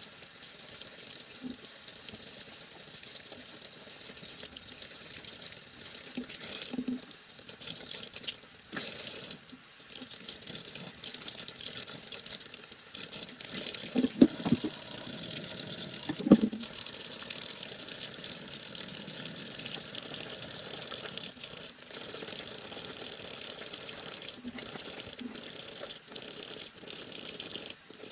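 Tap water running into a sink, with two sharp knocks about halfway through.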